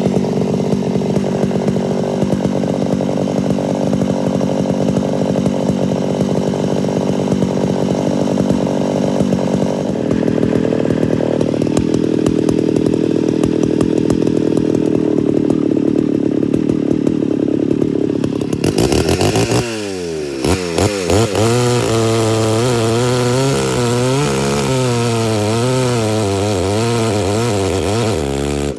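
Homelite Super XL-925 82cc two-stroke chainsaw cutting through a log at full throttle, its chain deliberately sharpened too aggressively. The engine holds a steady pitch for most of the cut, then about two-thirds of the way in its speed starts rising and falling over and over.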